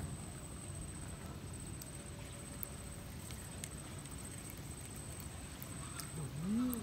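Quiet outdoor background: a steady low rumble with a few faint scattered clicks, and near the end a short rising-then-falling voice-like sound.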